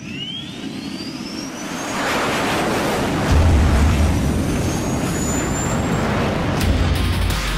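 Jet-engine spool-up sound: a turbine whine rising steadily in pitch over a swelling rush of noise. Deep bass notes come in about three seconds in.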